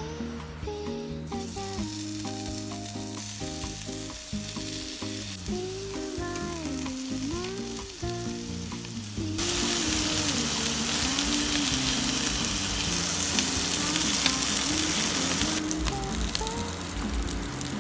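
Salmon fins sizzling as they fry in a hot nonstick wok. The sizzle turns much louder about nine seconds in.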